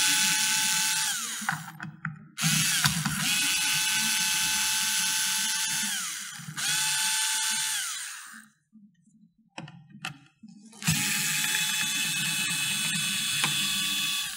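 Small cordless electric screwdriver running in four bursts, a steady motor whine that winds down in pitch as each burst stops, while it unscrews the screws of a 3D printer's electronics-case door. A few light clicks come in the pause about two-thirds of the way in.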